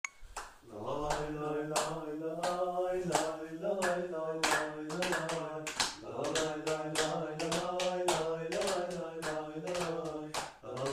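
A few men singing a Trabzonspor football terrace chant together, clapping in time at about two claps a second, with short breaks in the singing.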